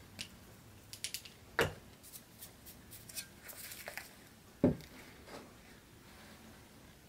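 Quiet handling of a paper-masked mug being worked with a stippling brush: scattered light taps and rubs, with two louder knocks about one and a half and four and a half seconds in.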